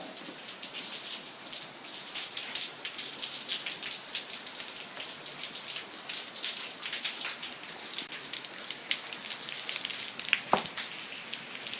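Heavy rain falling, with many close drops ticking sharply and one louder tap about ten and a half seconds in.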